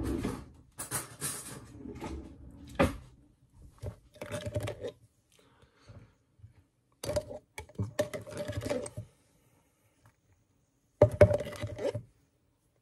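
Kitchen handling noises: rustling, scraping and clinking of utensils and food being handled while a sandwich is made, in bursts of a second or two with short pauses between.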